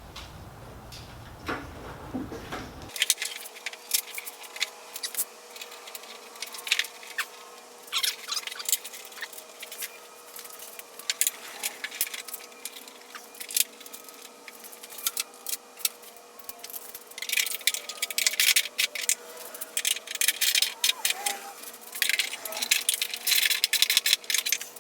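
Irregular sharp clicks and light clatter of handling, over a faint steady hum. The clicks come thicker from about two-thirds of the way in.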